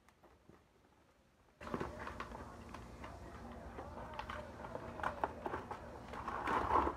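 Plastic and cardboard toy packaging being handled and pulled apart: small irregular clicks, ticks and rustles. It starts after about a second and a half of near silence.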